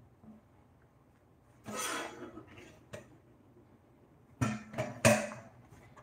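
A person coughing a few times in short bursts, once about two seconds in and again twice around four and a half to five seconds.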